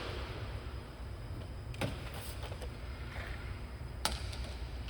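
Steady low hum of a workshop, with two sharp clicks of hand tools or small metal parts being handled, one about two seconds in and another about four seconds in.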